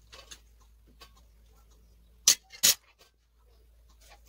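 A metal spoon clinking against ceramic plates: a few soft ticks, then two sharp clinks about half a second apart.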